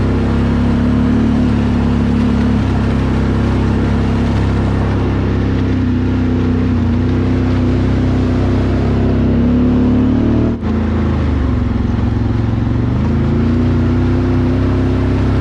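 Can-Am Outlander 1000R ATV's V-twin engine running as the quad rides along a gravel trail. The engine eases off a little past halfway and picks up again near the end, with a momentary dropout in the sound just before it eases off.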